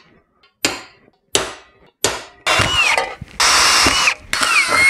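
Three sharp knocks on a steel electrical enclosure, then a cordless power tool run in three short bursts, its motor whine dropping as each burst ends.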